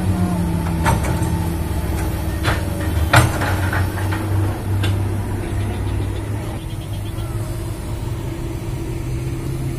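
Heavy diesel engines running steadily: a Komatsu PC200 hydraulic excavator working close by, together with a tanker truck. Several sharp knocks sound over the first five seconds, the loudest about three seconds in.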